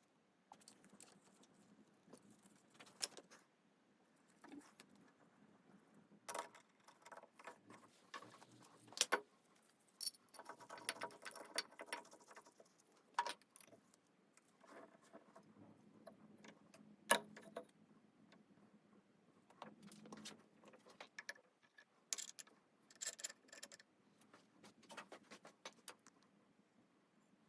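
Metal parts and tools handled at a workbench: irregular clicks, knocks and light metallic jangling, with the sharpest knocks about nine and seventeen seconds in.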